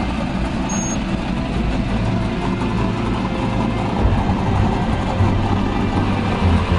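Car engine running steadily with a low rumble, getting a little louder near the end.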